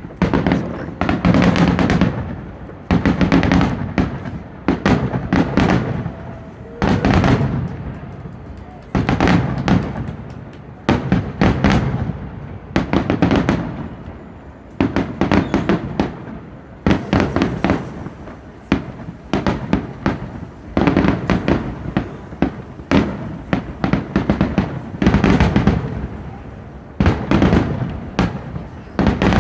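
Fireworks going off in repeated volleys, a dense cluster of bangs and crackles about every two seconds.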